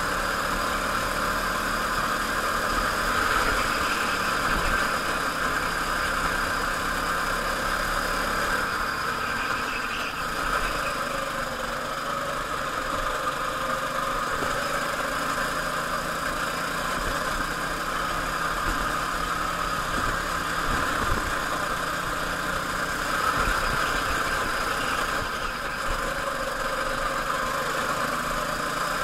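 Go-kart engine running at racing speed, a steady drone whose pitch rises and falls slightly as the kart goes through the corners.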